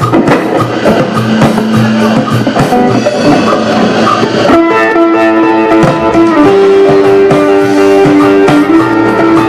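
Guitar-led music played at a sound check. Busy playing gives way about halfway through to long held notes.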